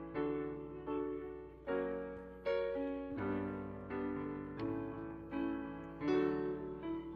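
Background music: a slow piano melody, its chords struck about once every three quarters of a second and left to ring and fade.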